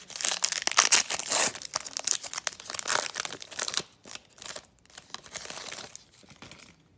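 Plastic wrapper of a hockey card pack crinkling and tearing in the hands: a dense crackle for about four seconds, loudest about a second in, then lighter scattered crinkles.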